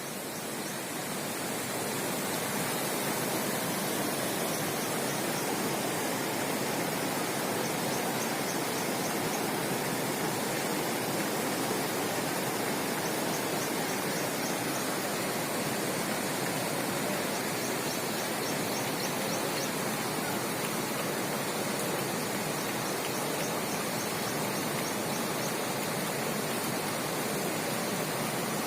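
Steady rushing noise of flowing floodwater, even and unbroken.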